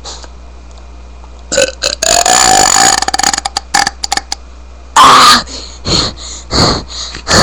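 A man burping deliberately and loudly: one long, drawn-out burp about two seconds in, breaking into choppy sputters, then a second loud burp about five seconds in that falls in pitch, followed by a few short bursts.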